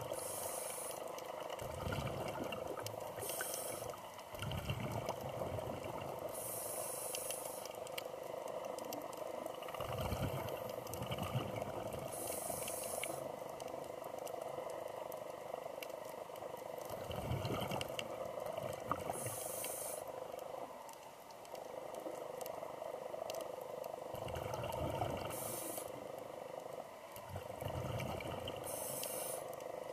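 Scuba diver breathing through a regulator underwater: a short hiss of inhalation, then a low bubbling rumble of exhaled air, repeating every few seconds over a steady hum.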